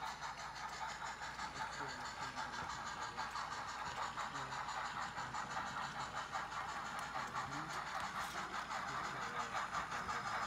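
Blackstone HOn3 K-27 and C-19 model steam locomotives running fast together, giving a steady, noisy running sound with a quick, even pulse.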